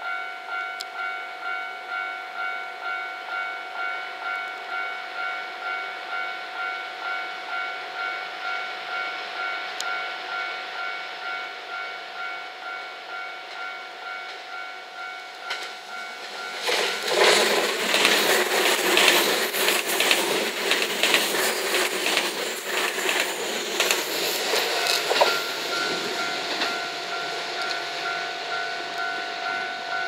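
A Japanese level-crossing alarm rings a steady electronic pulse, a little over once a second. From about sixteen seconds in, a six-car JR West 227 series electric train passes over the crossing, and the rush of its wheels on the rails, with sharp clacks, drowns out the bell. The bell comes through again for the last few seconds.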